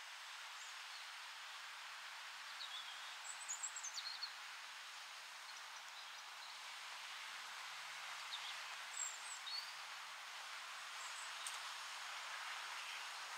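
Steady rustle of wind through trees, with a few short, high bird chirps about three seconds in and again around nine seconds.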